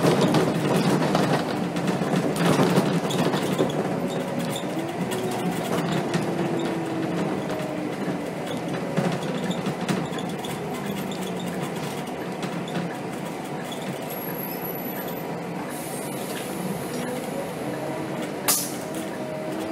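Scania K270 city bus driving, heard from the driver's cab: steady engine and road noise with small rattles and clicks throughout, and one sharp click near the end.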